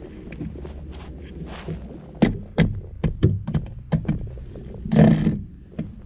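Irregular knocks and clanks of objects being handled, growing busier after about two seconds, with one brief, louder, rougher burst about five seconds in.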